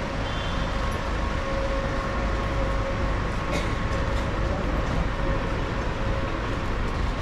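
Steady low vehicle rumble with a constant hum over it, holding even throughout.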